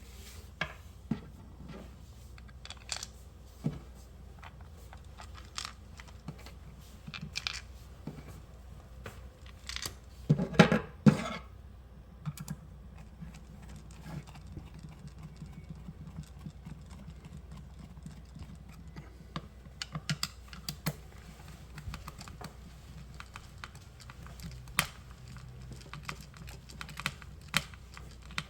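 Irregular light clicks and taps, with a louder burst of them about ten seconds in, over a steady low hum.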